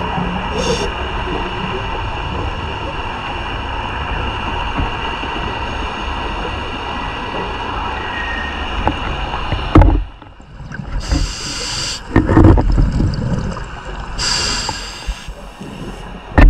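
Underwater, a steady mechanical drone holding several fixed pitches for about ten seconds, then a scuba diver breathing through a regulator: short hissing inhalations alternating with louder rumbling bursts of exhaled bubbles.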